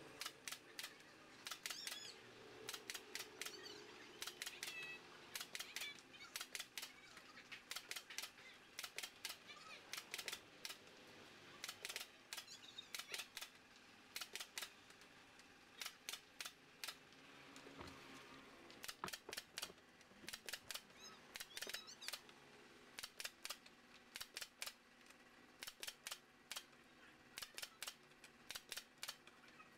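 Pneumatic nail gun firing again and again into bamboo slats: sharp clacks, often two in quick succession, in irregular runs of shots.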